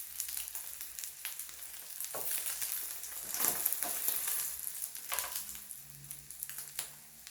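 Tofu and deodeok pancakes sizzling in hot oil in a frying pan, a steady hiss with scattered pops and crackles. The heat has just been turned off, and the sizzle dies down toward the end.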